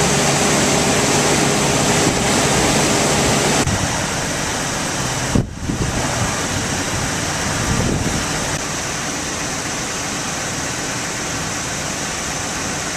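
The 4.6-litre V8 of a 2006 Ford E250 van idling steadily under the open hood, heard as a low steady hum under an even rushing hiss. The sound changes slightly about four seconds in and drops out for a moment a little later.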